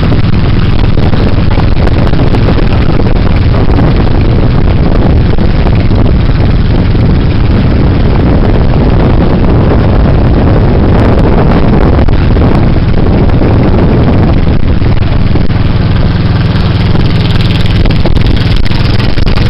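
Engine of a small wooden riverboat running steadily at cruising speed, heard loud and close from on board.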